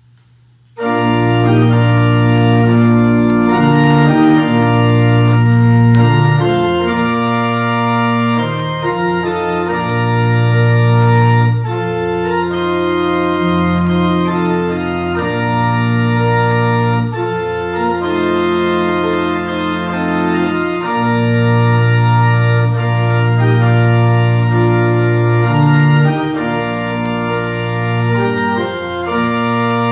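Pipe organ starting about a second in and playing a slow piece of held chords, the chords changing every second or two.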